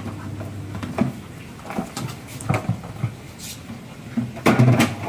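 Black plastic bucket knocking and scraping on a stone-tiled floor as a Labrador pushes it along with its head inside: irregular knocks about a second apart, with a louder clatter near the end.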